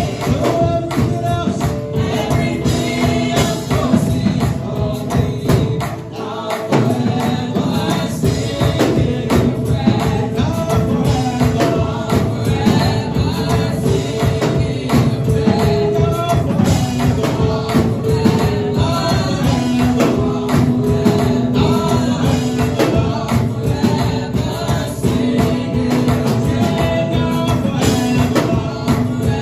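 Gospel praise music: a choir and lead singers singing over a driving beat with tambourine. Around six seconds in, the bass drops out briefly.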